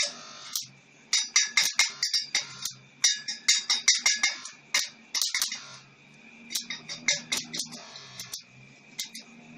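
Stick (arc) welding with an inverter welder: the electrode arc crackles and sputters in irregular bursts, stopping and starting. It is loudest in the first half and thins out near the end, over the machine's steady low hum.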